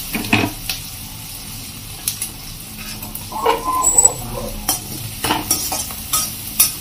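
Sliced onions sizzling in hot oil in a kadhai, frying until lightly coloured, while a perforated steel spoon stirs them, scraping and clinking against the pan.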